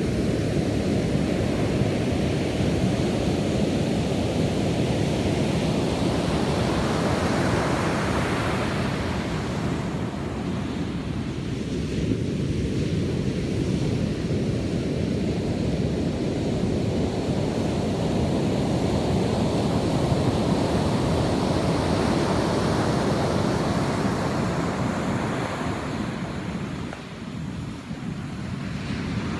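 Sea surf washing onto a beach, with wind rumbling on the microphone. The surf swells louder twice, about a quarter of the way in and again past the middle.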